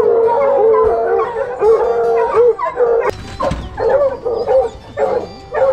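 Hunting hounds baying from the truck's dog box: a strike, the dogs having winded an animal's scent. Several long, overlapping bays for about three seconds, then a few shorter separate bays.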